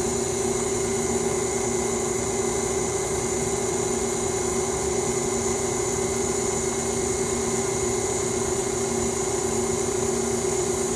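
Electric tilt-head stand mixer running steadily at a constant speed with a steady motor hum and whine, beating coconut oil and coconut sugar together in its steel bowl.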